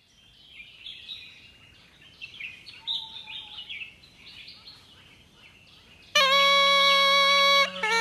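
Birds chirping, quiet and scattered. About six seconds in, a loud reedy wind instrument cuts in, playing held notes that step in pitch over a steady drone.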